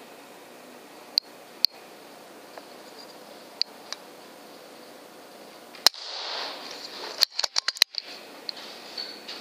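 A single sharp crack from an FX Impact M3 .25 PCP air rifle firing about six seconds in, followed by a brief rustle and a quick run of sharp clicks. A few lighter clicks come earlier.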